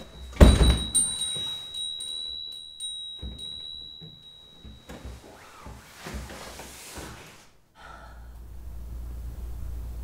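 A front door shuts with a heavy thunk about half a second in, over a thin high steady tone that fades out about five seconds in. A few fainter knocks and rustles follow.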